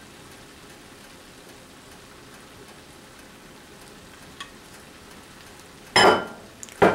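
Vegetables and sauce sizzling steadily in a hot wok during a stir-fry. Near the end come two loud, sudden scrapes of stirring in the wok.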